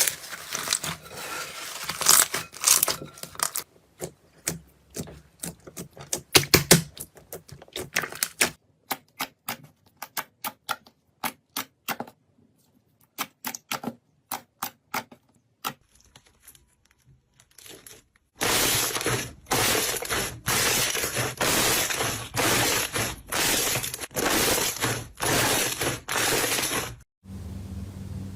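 Slime being squeezed and pressed close to the microphone: dense crackling and popping at first, then a long run of sharp separate clicks and pops. In the last third comes a regular series of about a dozen longer squishing strokes, roughly one and a half a second.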